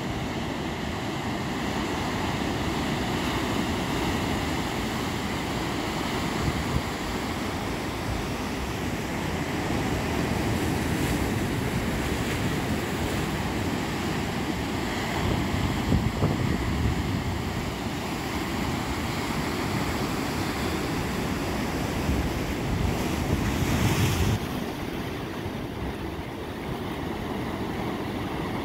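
Ocean surf breaking and washing over a rocky shore, a continuous rushing wash. It swells louder about halfway through and again in a brief, stronger crash near the end.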